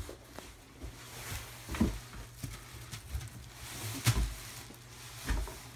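Clear plastic wrapping on a Century BOB XL punching dummy rustling and crinkling while the dummy is lifted out of its cardboard box, with a few dull thumps, the loudest about 2 and 4 seconds in.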